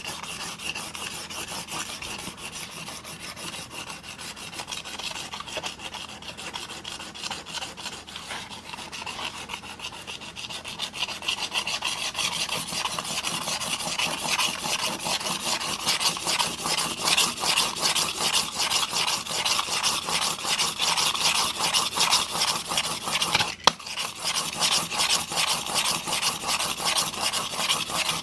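Steel single-bevel broadhead blade being stroked rapidly back and forth on an 800-grit diamond sharpening plate in a roller sharpening guide, raising a burr: a steady rasping that grows louder about eleven seconds in, with one brief break about two-thirds of the way through.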